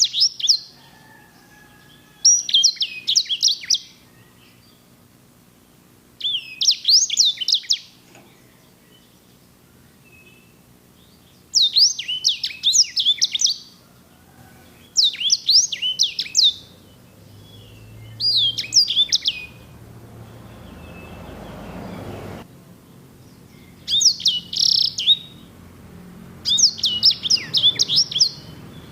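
A sanger songbird singing: repeated bursts of fast, high, sweeping rolled notes, each lasting one to two seconds with short pauses between, about eight bursts in all. A soft rushing noise swells in the background about two-thirds of the way through and cuts off suddenly.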